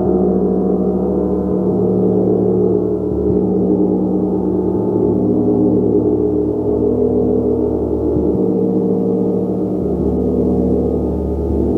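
A gong played continuously: a loud, dense, sustained mass of overlapping ringing tones with no single strike standing out, the lowest tones shifting every second or two.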